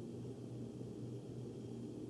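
Faint steady low hum of a forced-air furnace's ductwork, with no distinct taps.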